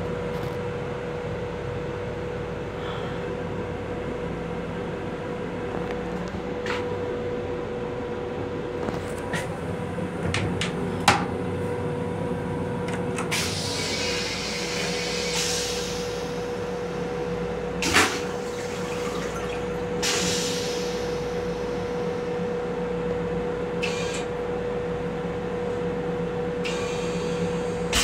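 Steady hum inside an M7 electric railcar's restroom, with a constant tone. It is broken by a few sharp knocks and short spells of hiss.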